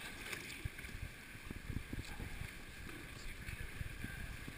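Sea water lapping and sloshing against kayak hulls inside a sea cave, with irregular low thuds under a steady hiss.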